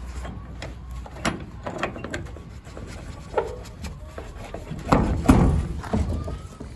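Shop doors being pulled shut: a string of knocks and rattles, with the loudest clatter about five seconds in.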